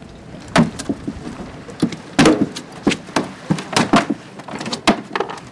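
A freshly landed barracuda thrashing on a boat's fibreglass stern step as it is held down: a run of about nine sharp, irregular slaps and thuds, over a steady rush of water along the hull.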